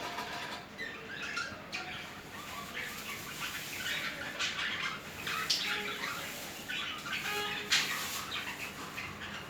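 Budgerigars chattering and warbling: a continuous stream of short chirps, squeaks and clicks, the courtship song of a mating pair.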